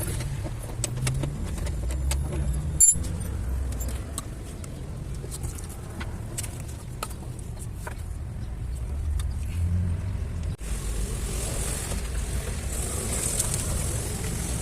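Light metallic clinks and taps of hand tools on car parts over a steady low rumble of vehicle noise, with one sharp clack about three seconds in.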